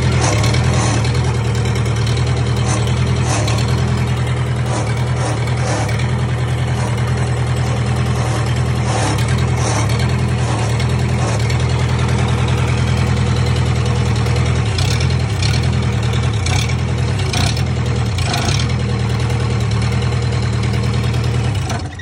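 Four-cylinder diesel engine of a 1998 Gehl 4625 skid steer running steadily on its rebuilt fuel injection pump and new injectors.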